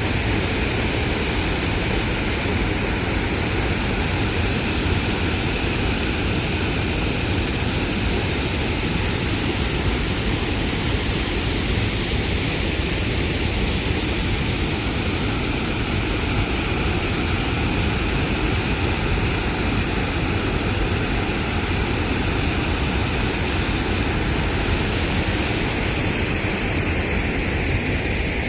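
Waterfall: water pouring and rushing in a steady, unbroken roar of noise.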